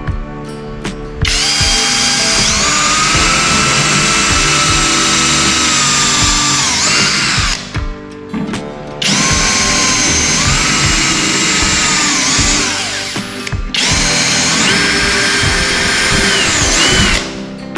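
Worx WU369 cordless drill driving screws in three long runs. Its motor whine rises as it spins up and drops off as each run ends. Background music plays underneath.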